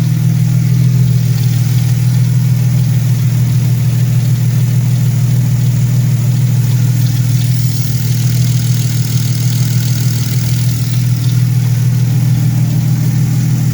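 Mercedes-Benz W210 E320's V6 engine idling steadily, freshly started on a new custom fuel system. The owner finds it running rich and thinks the injectors are pushing too much fuel.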